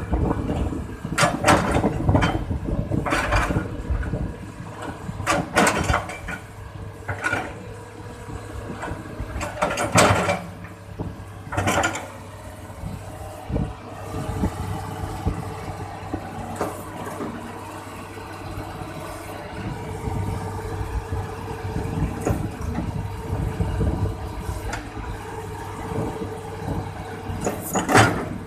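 Hitachi excavator's diesel engine running steadily while the machine is worked through its warm-up moves, with a series of sharp knocks, most of them in the first few seconds and a loud one near the end.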